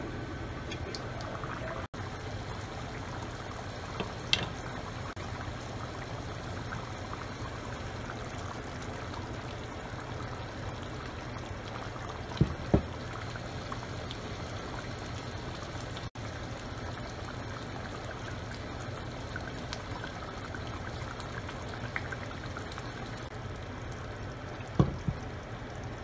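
Fish curry simmering in a pan, a steady bubbling with a low hum beneath it, broken by a few sharp knocks.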